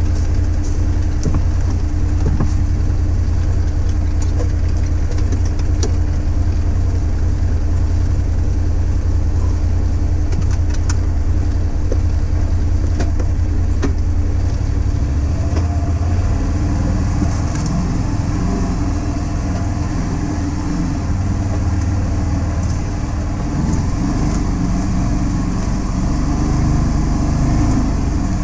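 Can-Am Defender HD10 side-by-side's V-twin engine running steadily. About halfway through the engine note shifts and grows rougher. Small clicks and rattles are scattered throughout.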